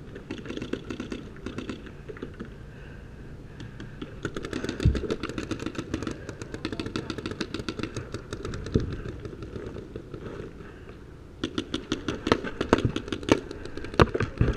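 Paintball markers firing in rapid strings of sharp pops, many shots a second, with a heavier thump about five seconds in. The firing eases briefly around ten seconds, then comes back louder and denser near the end.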